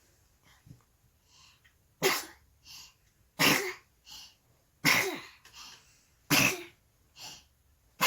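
Baby sneezing again and again in quick succession: four sharp sneezes about a second and a half apart, starting about two seconds in, with a fifth at the very end. Each sneeze is followed by a softer little sound.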